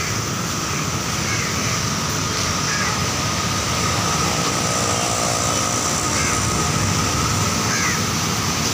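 Steady city road traffic: cars, trucks and auto-rickshaws passing on a wet road, with a few short high chirps now and then.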